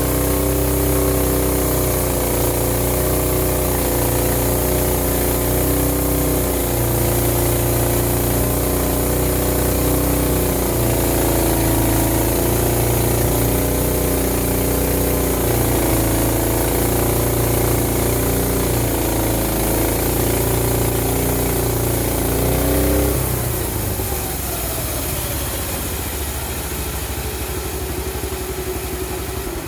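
Engine of a homemade band sawmill running steadily, its note wavering slightly. About 23 seconds in, the low engine tone drops away suddenly and a whine slides down in pitch over a few seconds, then a quieter steady hum carries on.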